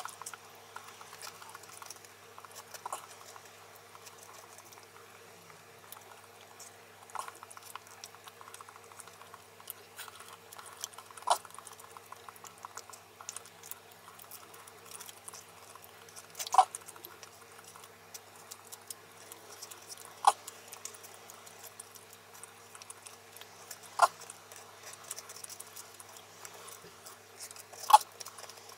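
Wooden chopsticks clicking and scraping against a thin shaved-wood ekiben box as the rice is picked out: a run of quick small ticks with about six sharper knocks a few seconds apart, the loudest near the end.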